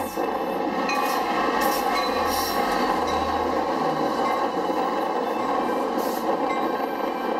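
NJ Transit diesel-hauled passenger train passing close by: the locomotive goes by, then its coaches roll past, a steady loud noise of engine and wheels on the rails.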